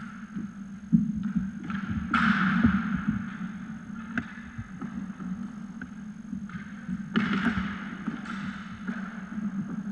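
Inline skate wheels rolling on a hard sports-hall floor, with a sharp knock of a hockey stick or ball about a second in and two louder swishing rushes around two and seven seconds.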